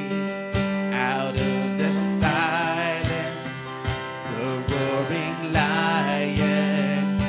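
Live worship band music: acoustic guitar and keyboard holding chords over a steady cajon beat, with a voice singing the melody.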